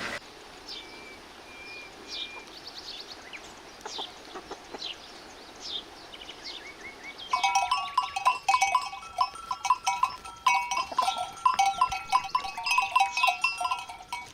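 Faint short high chirps in the first half, then from about seven seconds in, loud wavering livestock bleating, call after call without a break.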